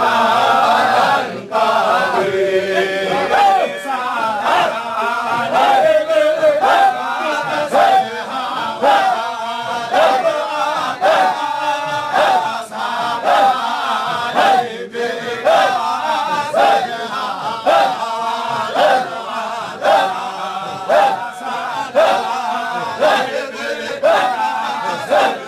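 Group of men chanting Sufi dhikr in unison, a repeated phrase with a strong accented pulse about once a second.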